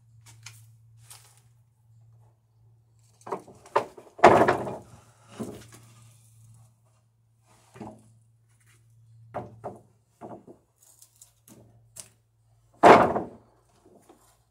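Long wooden boards knocking and thudding against each other and the lumber pile as they are shifted and pulled out: a scatter of knocks, with two heavy thuds about four seconds in and near the end.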